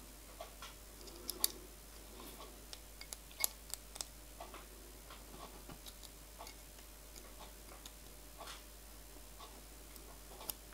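Faint, scattered clicks and ticks of small metal parts being handled: bronze split big-end bearing halves being fitted by hand into the steel strap of a miniature steam locomotive connecting rod. A few sharper clicks stand out, one near the end.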